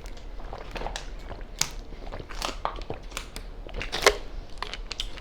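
Crab leg shells being cracked and snapped apart by hand while eating, a run of irregular sharp cracks with the loudest snap about four seconds in.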